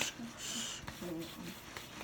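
Quiet, faint talk in a small room, with a brief hushing "shh" about half a second in.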